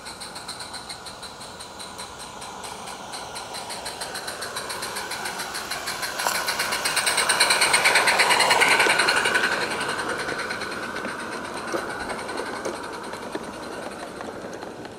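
Small live-steam garden-railway locomotive hauling passenger coaches, chuffing rapidly as it passes close by. It is loudest about eight seconds in, then fades as the coaches roll past on the rails.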